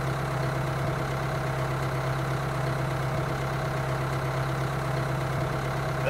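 Steady engine idling drone, an even hum that neither rises nor falls, going with the toy tractor as it tows its trailer.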